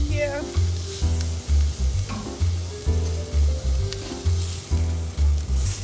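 Music with a heavy bass beat, about two beats a second, over the steady sizzle of bone-in ribeye steaks and asparagus cooking on a hot gas grill.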